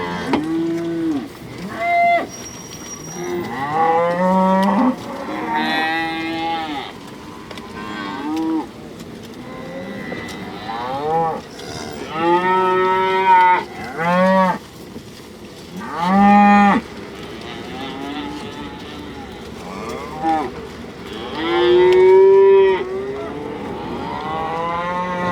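A herd of cattle mooing, about a dozen long calls in a row, some overlapping, each rising and then falling in pitch; two of them, about two-thirds of the way in and near the end, are the loudest.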